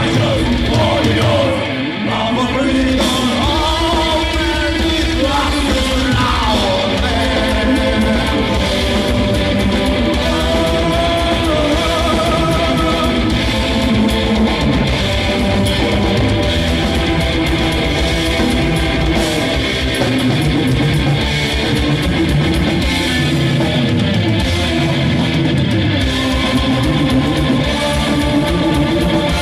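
Heavy metal band playing live: distorted electric guitars, bass and drums with a rapid kick-drum pattern. A singer's wavering vocal line rides over the band for the first several seconds, after which the instruments carry on alone.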